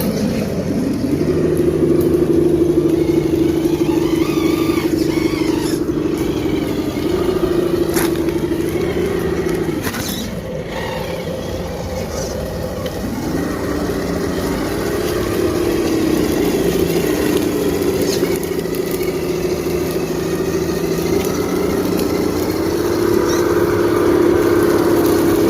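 Electric motor and gearbox of an RC off-road crawler truck whining steadily, the pitch rising and falling as the throttle changes, with a few sharp clicks along the way.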